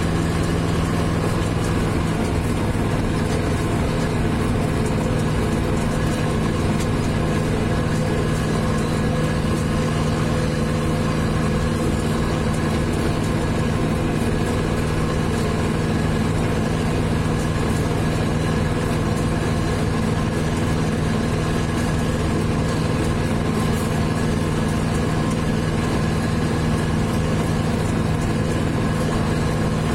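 Zetor 7011 tractor's four-cylinder diesel engine running steadily at an even speed, heard from inside the cab.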